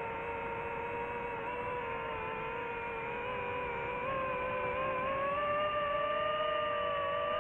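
DJI FPV drone's motors and propellers giving a steady multi-tone whine. The pitch rises about four seconds in as the throttle comes up, then holds.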